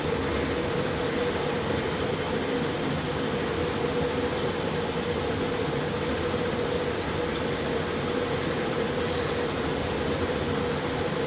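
Steady machine hum: an even hiss with one constant mid-pitched tone, unchanging throughout.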